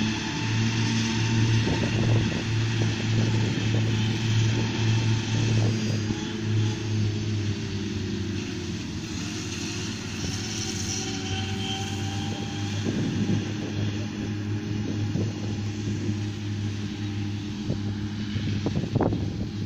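Tractor engine running steadily at working speed while making haylage, with a slight dip in pitch about halfway through and a few sharp knocks near the end.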